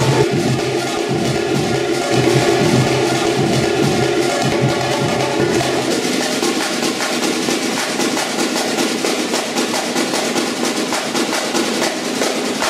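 Samba percussion band playing a fast, dense drum rhythm on snare-type drums. Low sustained tones sound under it at first and drop away about halfway, leaving mostly drums.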